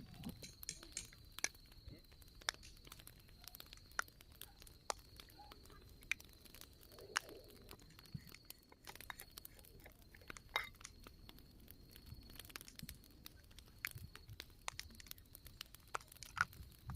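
Wood fire crackling: irregular small pops and snaps, with a faint steady high whine underneath.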